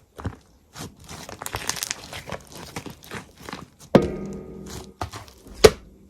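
Crunchy slime being squeezed and pressed, giving irregular crackling, crinkling clicks. A sharp knock about four seconds in leaves a short ringing, and a second sharp knock follows near the end.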